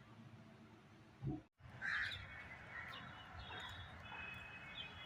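Crows cawing, the loudest call about two seconds in, with other high bird calls over faint steady outdoor background noise.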